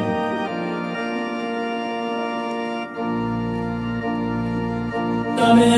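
Organ-like keyboard music playing held chords, which change about half a second in and again near three seconds in; a louder, fuller sound joins near the end.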